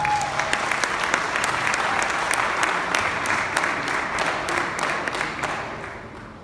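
Audience applause right after the end of a choir-and-band performance: a dense patter of many hands clapping that dies away near the end.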